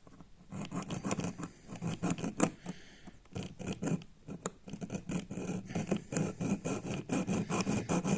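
Junior hacksaw sawing into a brass compression olive on a pipe, quick back-and-forth strokes of about three or four a second, with short pauses about three and four seconds in. It is cutting a slot in a stubborn olive so it can be split off the pipe.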